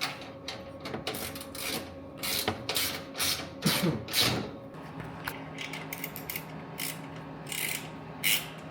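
Tools working the fasteners of a new exhaust system as it is fitted: a run of short, irregular clicking strokes, a few a second, over a low steady hum.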